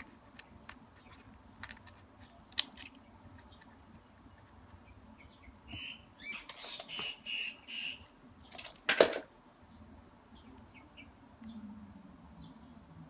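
Small scissors snipping satin ribbon, then scattered sharp clicks and light rustling as the ribbon and a tiny woven ribbon bag are handled, with two louder clicks a few seconds apart. A run of high chirp-like squeaks comes about six to eight seconds in.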